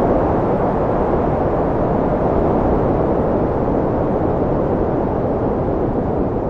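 Arctic coastal wind blowing hard: a steady, low rushing noise that eases slightly near the end.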